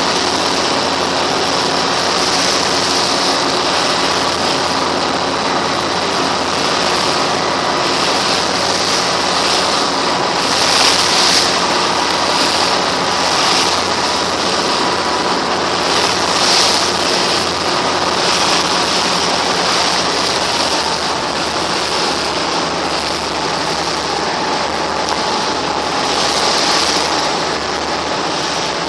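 Pilot boat under way: its engine runs at a steady drone beneath the loud rush and splash of water along the hull, the splashing surging louder a few times.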